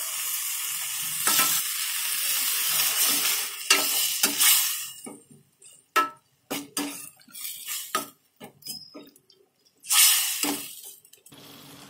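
Tomato-onion masala sizzling in a steel kadai as water is added, while a steel ladle stirs it. After about five seconds the sizzle drops away and the ladle knocks and scrapes against the pan in a run of short clinks. Near the end there is a brief loud burst of sizzling.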